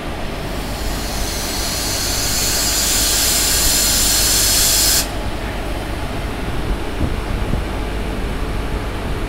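Compressed air hissing from a locomotive, building for about five seconds and then cutting off suddenly, over the locomotive's steady low running rumble.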